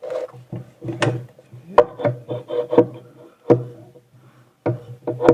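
Metal parts knocking, clanking and scraping together as they are handled and fitted by hand, with about half a dozen sharp knocks, each ringing briefly.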